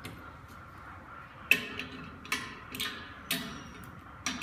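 A handful of sharp metallic clicks from aluminium mounting-rail and clamp parts knocking together as they are fitted by hand. The first, about a second and a half in, is the loudest.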